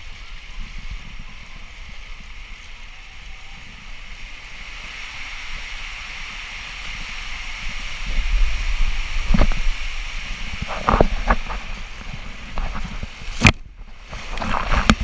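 Rushing water and the hiss of a rider sliding down a water slide, heard from close to the rider. From about eight seconds in there are knocks and rumbles as the rider passes through the enclosed tube. Near the end comes a sharp splash as the rider drops into the pool, the sound goes briefly muffled, and then there is splashing.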